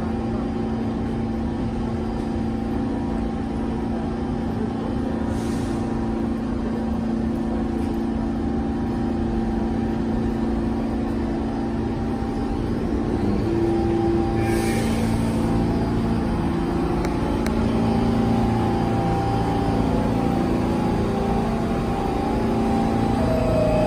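New York City subway train standing at the platform with its motors and equipment running: a steady rumble and hum with a few low steady tones, growing slightly louder about halfway through. Two short hisses come about five and fourteen seconds in.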